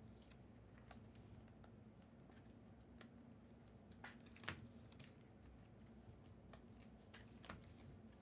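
Near silence with a faint steady hum and scattered faint clicks and ticks of trading cards and foil packs being handled.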